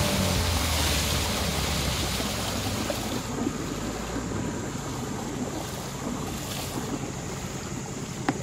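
Rushing water and wind noise from a boat under way on a river, with a low hum underneath. The rush is strongest at first and eases about three seconds in, and a single sharp knock sounds near the end.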